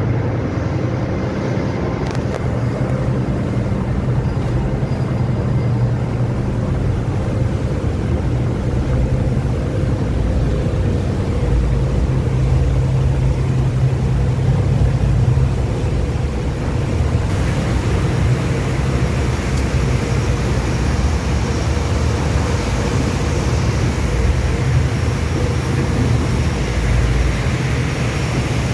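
Steady low drone of a cargo ship's engines on deck while the ship is under way, with a rushing hiss over it that grows brighter a little past halfway.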